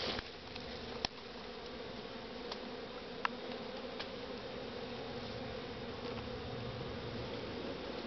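Honeybee swarm buzzing, a steady hum of many bees around a swarm cluster hanging in a tree. A few light clicks break through it, the sharpest about a second in.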